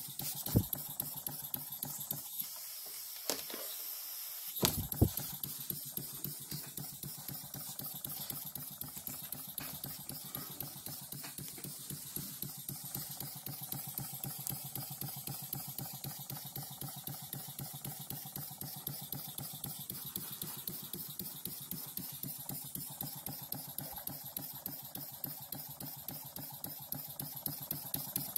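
Small model single-acting steam engine running, its moving parts giving a rapid, even ticking over a faint hiss. A few sharp knocks come in the first five seconds, and the ticking drops out briefly around three seconds in.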